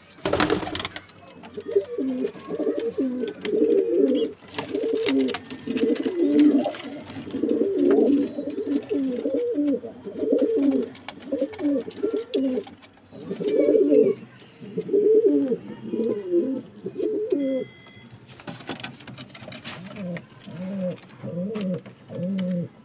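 Domestic pigeons in a loft cooing over one another in rolling, warbling coos. Near the end this gives way to a slower run of lower coos, under two a second. There is a brief scuffing noise about half a second in and another about two-thirds of the way through.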